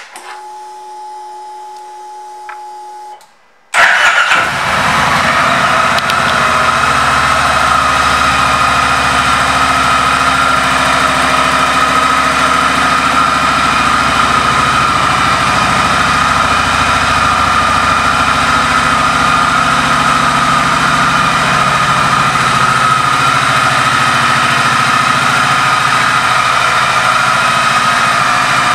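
Kawasaki Vulcan 1700 Vaquero's 1,700 cc V-twin started about four seconds in, after a few seconds of a steady hum, then idling steadily.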